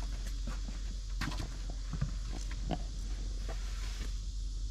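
Irregular footsteps and small taps on hard ground, over a steady low rumble.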